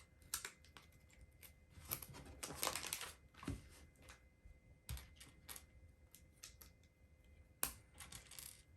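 LEGO bricks clicking and clattering as plastic pieces are picked up, sorted and pressed together, in irregular faint clicks with a busier rummaging stretch about two to three seconds in.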